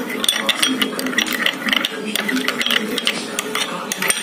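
A spoon stirring a thick sauce dip in a glass bowl, clicking and scraping against the glass in rapid, irregular ticks.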